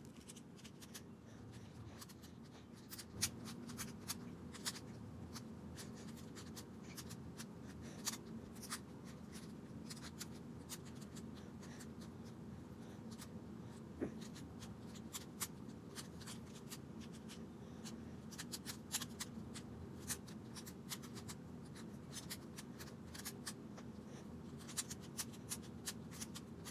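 A mini Rubik's Cube being turned quickly by hand: many irregular, sharp clicks and rattles of its plastic layers turning, over a steady low hum.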